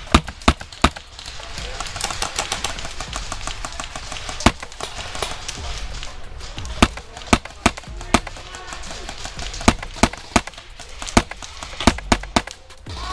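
Airsoft guns firing: scattered sharp single shots, with a rapid run of shots about two seconds in.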